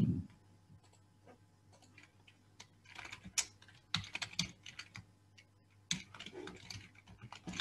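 Typing on a computer keyboard: short runs of keystroke clicks that start about two and a half seconds in, as a short shell command is typed.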